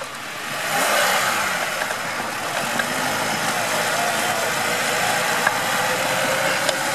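Lada Niva 4x4 engine running under load as the car is pulled through deep snow on a tow cable. The sound swells about a second in and then holds steady.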